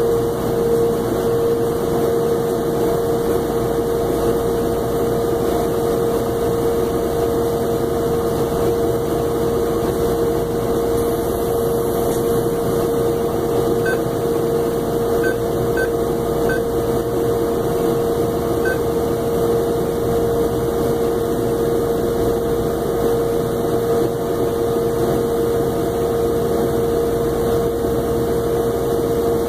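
A steady mechanical hum with one strong pitched tone. Around the middle, five short, faint beeps come from the ATM keypad as keys are pressed.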